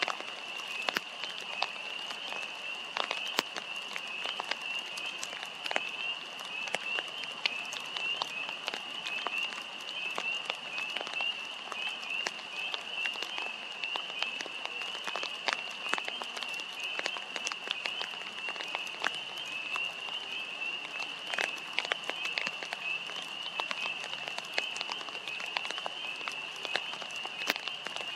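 A dense chorus of frogs calling, a steady high-pitched mass of overlapping peeps with no break, and scattered sharp clicks throughout.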